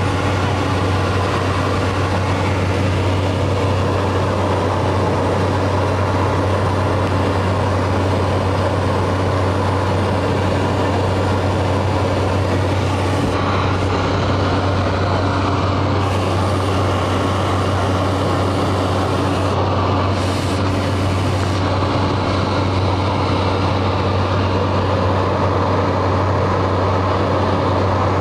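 Cessna Caravan's PT6A turboprop engine and propeller running steadily in flight, heard from inside the cockpit: a loud, even low drone with airflow noise over it.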